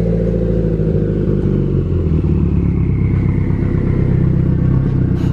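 Subaru WRX STI's turbocharged flat-four engine running at low speed, a steady low rumble whose pitch eases slightly over the first couple of seconds.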